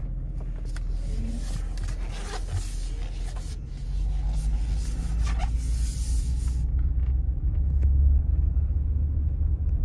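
2009 Chevy Tahoe Hybrid heard from inside the cabin as it pulls away and gathers speed. A low rumble grows louder from about four seconds in.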